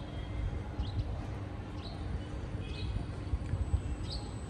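Outdoor ambience with a steady low rumble. Over it a bird gives a short rising chirp about once a second, four times.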